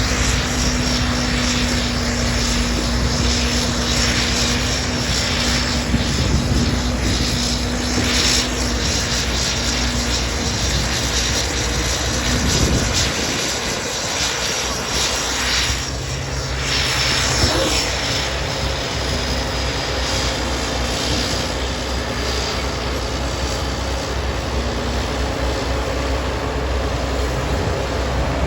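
Classic Caterpillar D8 crawler tractor's diesel engine running steadily as it pulls a scraper box through soil, with a thin high whine over the drone. About thirteen seconds in the engine note dips and settles at a lower pitch.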